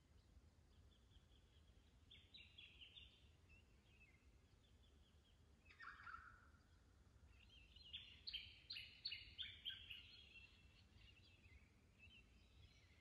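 Faint bird calls: scattered short chirping notes, then a louder run of quick repeated notes about eight to ten seconds in.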